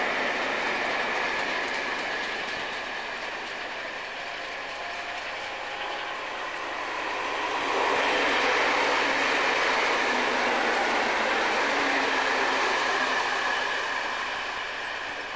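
Railway coaches rolling on the track: a steady rush of wheel and rail noise that eases off. From about eight seconds in it swells again as another train passes on the nearer line, and it fades near the end.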